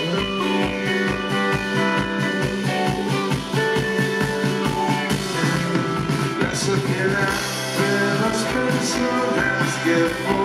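Rock band playing live: electric guitars, acoustic guitar, bass and drum kit over a steady beat.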